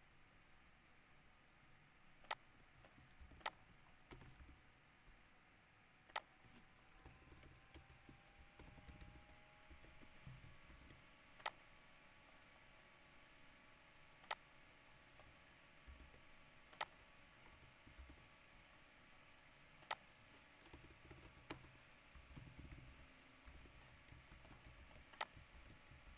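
Quiet room with about eight sharp, irregularly spaced clicks from a computer mouse and keyboard as code is scrolled and typed, over a faint steady hum.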